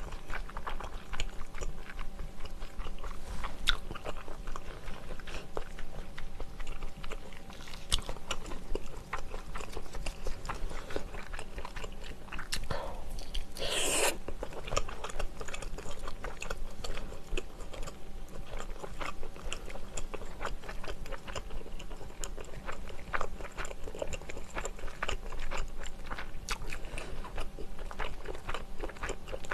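Close-miked chewing and biting of soy-braised chicken eaten by hand, a steady run of small wet mouth clicks, with one louder, longer mouth sound about fourteen seconds in.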